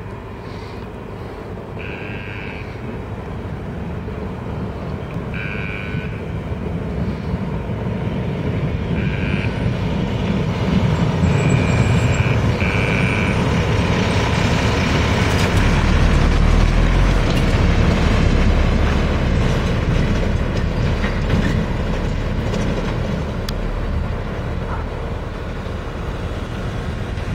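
Renault Kerax fire engine's diesel engine and tyres on a dusty dirt road, growing louder as the truck approaches, loudest as it passes at about 16 to 18 seconds in, then easing slightly. A few short high tones sound in the first half.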